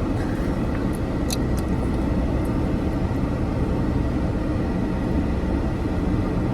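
Steady low rumble of a car, with a few faint clicks about a second in.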